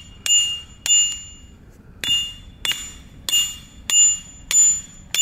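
Hammer blows on a steel trap stake driver, pounding a cable ground anchor into the soil. There are about eight sharp metallic strikes, each ringing briefly with a clear, bell-like tone, coming roughly every half second with a short pause after the second.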